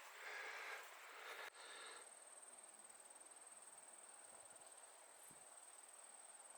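Faint outdoor quiet: a soft hiss for about the first second and a half stops abruptly. Then a steady, high-pitched insect trill continues alone.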